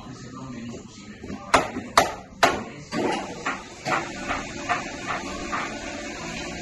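Knocks on a VW Type 4 engine case clamped on a milling-machine fixture, as the case is tapped over to square it up under a dial indicator: three sharp knocks about half a second apart, then a run of lighter knocks about two a second.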